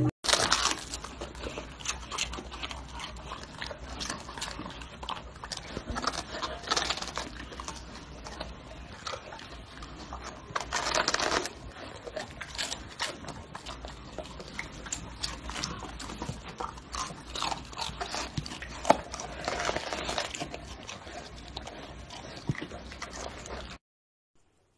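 Dogs chewing and crunching raw napa cabbage leaves, a dense run of irregular crisp crunches and tearing sounds that stops abruptly near the end.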